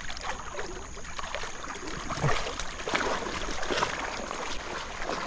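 Water splashing and dripping around a cast net that holds several large fish, a steady wet hiss with many short irregular splashes, a little louder about two to three seconds in.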